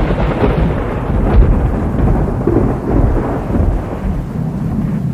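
Mount Marapi erupting close by: a heavy, continuous, thunder-like rumble that hits suddenly and keeps rolling at a loud level.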